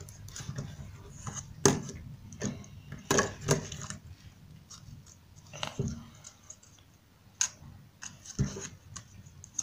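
Die-cut cardboard puzzle pieces being handled and slotted together on a tabletop: irregular rustles, scrapes and sharp clicks, the loudest about a second and a half in, around three seconds in and near the end.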